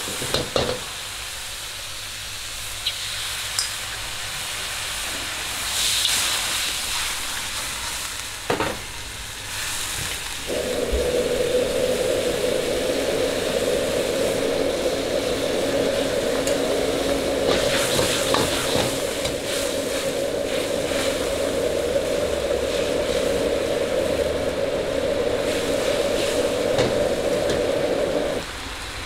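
Food sizzling as it fries in a pan, stirred with a spatula that clicks and scrapes against the pan now and then. About ten seconds in, a steady low hum starts under the sizzle and stops shortly before the end.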